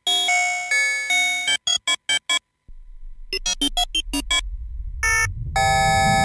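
Electronic music for an animated intro: a run of short, clipped synthesizer chords, then a low rumble that swells from about three seconds in under more short chords, ending on a held chord.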